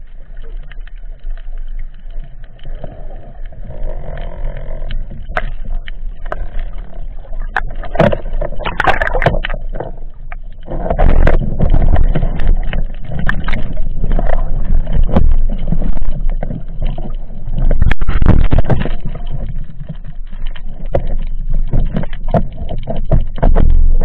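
Muffled underwater noise: a low rumble of moving water, with scattered clicks and knocks. The rumble grows much louder about ten seconds in.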